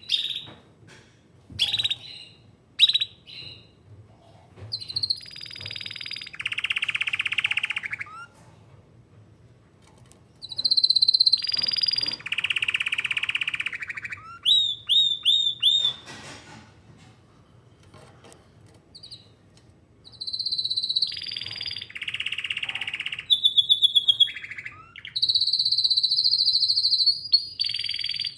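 Domestic canary singing: a few short chirps, then three long bouts of fast trills, buzzy rolls and repeated whistled notes, with short pauses between them.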